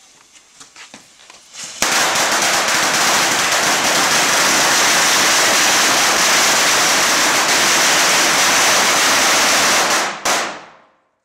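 A long string of firecrackers going off in one continuous rapid crackle, starting about two seconds in, lasting about eight seconds and stopping abruptly near the end.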